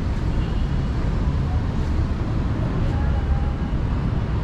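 Steady low rumble of city road traffic mixed with wind on the microphone, with faint voices of people close by.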